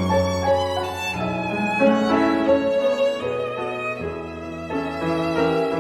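Music: a bowed violin melody moving from note to note over sustained low notes underneath.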